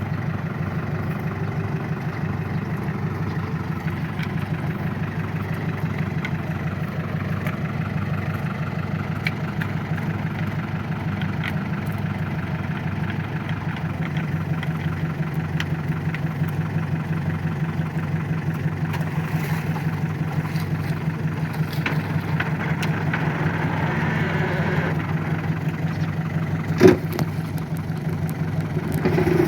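Small paddy-field tractor's engine running steadily at an even speed, with a single sharp knock near the end.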